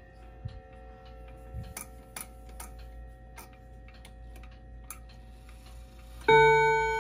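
Chiming wall clock ticking, with faint ringing from its chime rods. About six seconds in, a chime hammer strikes and a chime note rings out loudly. The clock has just been oiled and its tinny chime hammer given a new leather.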